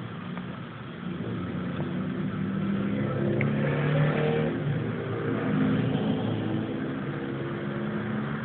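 A pet snoring steadily in a low rumble, getting louder about a second in and swelling around the middle.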